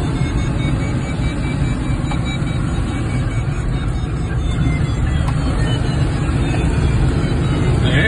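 Steady, heavy rushing of airflow around a Schweizer glider's cockpit in unpowered flight, with no engine note, only a faint thin high whistle running through it.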